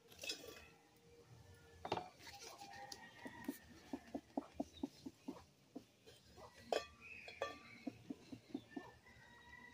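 Faint clinks and knocks as fuel and a metal pan are handled in a coal stove while a fire is being laid, with a run of short soft taps in the middle.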